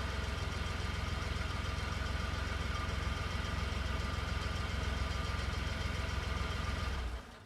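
Car engine idling steadily with a deep rumble, then fading out about seven seconds in.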